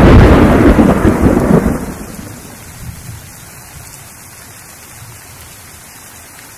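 A loud peal of thunder rumbling and dying away over the first two seconds, leaving steady rainfall.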